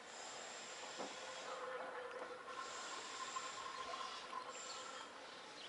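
Faint steady hiss of outdoor background noise, with a high thin whine that comes and goes, stopping about a second and a half in and returning twice.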